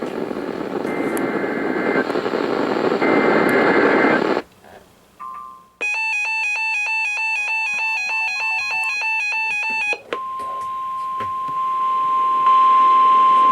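Weather-radio alert sequence: a few seconds of hissing static, a short pause, then about four seconds of rapidly warbling electronic alert tones. These are followed by the steady 1050 Hz NOAA Weather Radio warning alarm tone, which gets louder a couple of seconds before the end.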